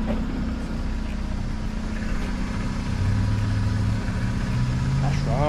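Car engine idling steadily, a low hum whose pitch creeps up slightly over the last couple of seconds.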